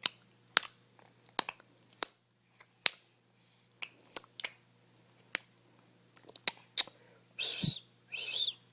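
A baby clicking its tongue: about a dozen sharp, irregularly spaced tongue clicks. Near the end come two short, high, breathy sounds with a bending pitch.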